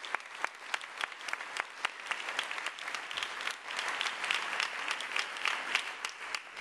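Audience applauding: separate claps at first, thickening into denser clapping about two seconds in.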